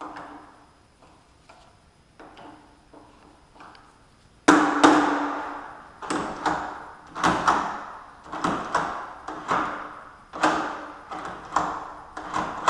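Interior door knob being turned and let go over and over, its spring-loaded latch bolt snapping back with a sharp metallic clack each time. The clacks come in pairs, one to two a second, starting about four seconds in after a few faint clicks. The knob is still sticking after its mounting screws were loosened slightly.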